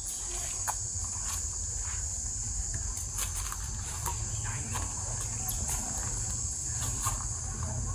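Steady high-pitched insect drone over a low rumble, with scattered short clicks.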